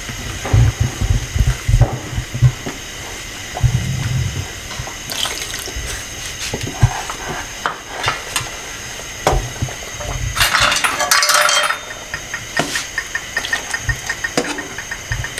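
Wooden spatula stirring and scraping a nonstick wok of simmering chutney as cornflour slurry is mixed in, with knocks against the pan in the first few seconds and a short burst of hiss a little after ten seconds.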